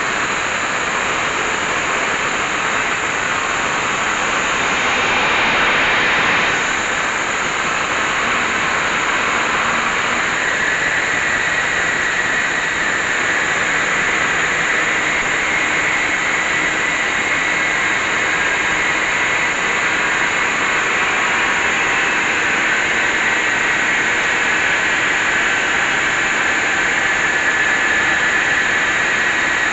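Traub automatic lathe running and cutting metal, a steady loud mechanical noise with a hiss. A thin high whine comes in about ten seconds in and holds.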